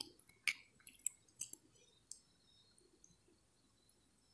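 A few faint, sharp clicks scattered through the first two seconds, then near silence.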